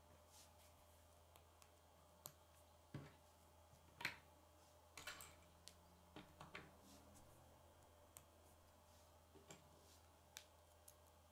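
Faint, irregular plastic clicks of K'nex rods and connectors being handled and snapped together, about a dozen in all, the sharpest about four seconds in.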